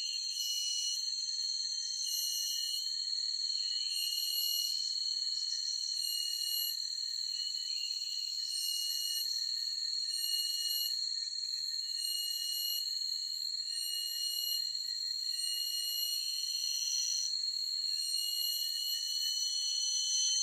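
Chorus of forest insects: a steady high-pitched drone of several tones, with a shrill trilling layer above it that breaks off and resumes every second or two.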